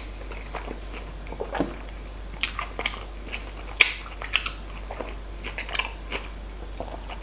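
A person chewing a mouthful of chicken dürüm wrap, with irregular mouth clicks and smacks, the sharpest about four seconds in.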